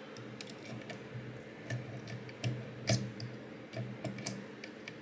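Irregular small metallic clicks and taps of hand tools working at the circlip on the back of a pin-tumbler lock cylinder, about ten in all, the sharpest about three seconds in.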